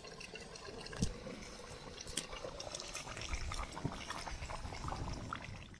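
Wood fire crackling in the firebox of an EcoZoom rocket stove: a low steady hiss with scattered pops and snaps, the sharpest about a second in and again about two seconds in.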